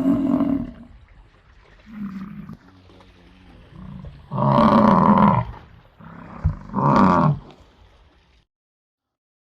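Gaur calling: a series of deep, drawn-out bellows. A shorter one comes about two seconds in, then two loud ones of about a second each around the middle and after it.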